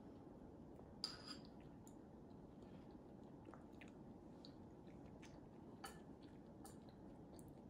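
Near silence: faint toddler chewing with scattered soft mouth clicks over low room tone, a slightly sharper click about a second in and another near six seconds.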